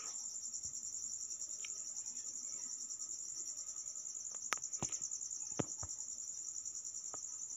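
Steady high-pitched trilling of insects, a cricket-like chorus. A few faint sharp clicks fall in the second half.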